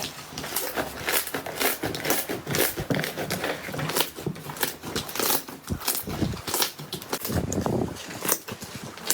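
Slime being squished and pressed, giving a dense run of irregular crackling pops and clicks, with lower squelching sounds later on.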